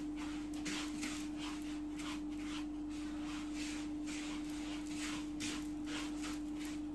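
Hands rubbing fine couscous grains coated in oil in a wooden bowl: a soft rustle repeating about three times a second. A steady hum at one pitch runs underneath.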